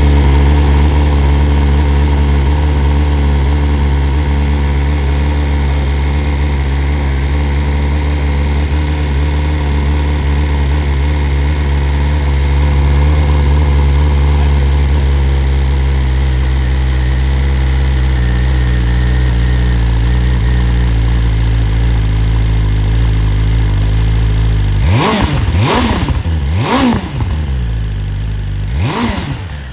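BMW S1000 RR's inline-four engine idling steadily, then revved in four quick throttle blips near the end.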